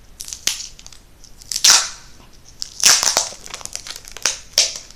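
Adhesive tape pulled off the roll in about five short, noisy tearing pulls, the loudest a little under two seconds and about three seconds in.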